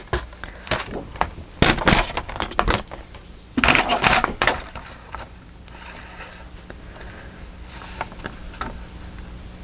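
Paper being handled on a craft table: short rustles, taps and clicks for the first few seconds, with a louder rustle about four seconds in, then only occasional faint ticks over a low steady hum.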